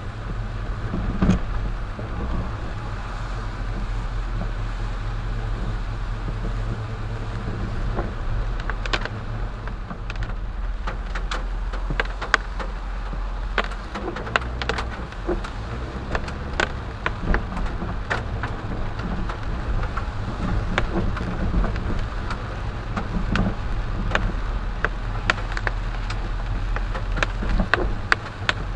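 Car driving on a wet road in the rain: a steady low rumble of engine and tyres, with raindrops ticking sharply and irregularly on the windshield, more of them from about a third of the way in.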